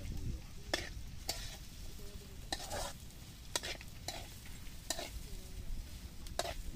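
Long metal spatula stirring and scraping vegetables frying in oil in a wok, with sharp scrapes against the pan about once a second over a steady sizzle.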